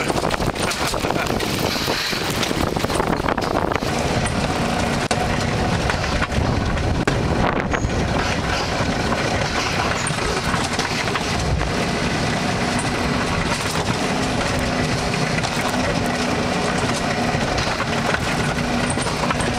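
Bobsled ride car running down its track: a steady loud rumble of the car, mixed with wind noise on the microphone. A faint steady whine joins in about halfway.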